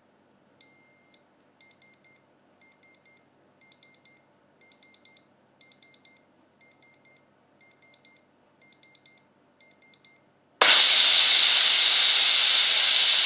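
Chef iQ electric pressure cooker beeping a countdown: one longer beep, then short groups of two or three beeps about once a second. About ten and a half seconds in, its automatic quick-release valve opens and vents steam with a sudden, loud, steady hiss as the pressure is let out.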